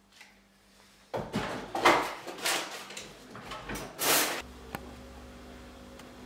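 A refrigerator door opened and shut by hand, with knocks and rattling of things inside it, the loudest knock about two seconds in. A steady low hum sets in after about four seconds.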